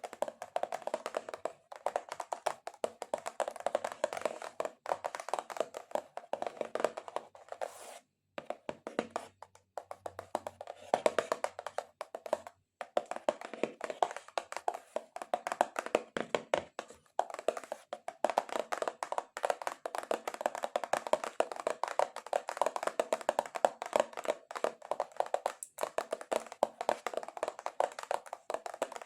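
Long acrylic nails tapping and scratching fast on a cardboard box, a rapid run of sharp clicks, with brief pauses about eight and twelve seconds in.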